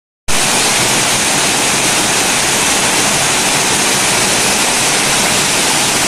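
Small forest waterfall, a single stream falling over a rock ledge into a pool, making a steady rushing hiss. It starts abruptly after a brief silence at the very start.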